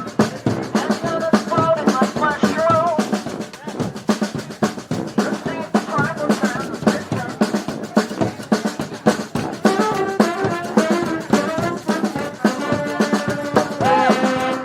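Brass band's drum section playing a busy snare and bass drum groove. Horns come back in over it in the last few seconds with held notes.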